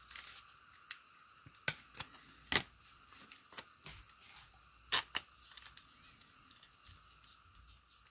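Trading cards being handled: a string of light clicks and taps at irregular intervals, the sharpest about two and a half seconds and five seconds in.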